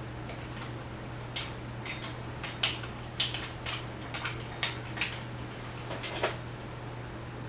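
About ten irregular sharp metallic clicks and taps from adjusting and tightening the bicycle's seat post clamp, over a steady low hum.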